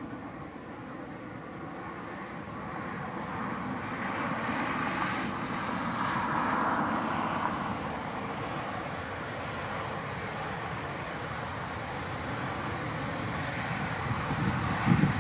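Jet engine noise from an Airbus A350-900's Rolls-Royce Trent XWB turbofans, growing louder over about six seconds, then easing and holding steady.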